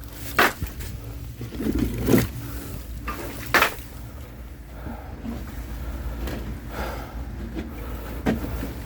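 Oak firewood being handled and stacked: a few separate knocks of wood set down, about a second, two seconds and three and a half seconds in and again near the end, over a low steady hum.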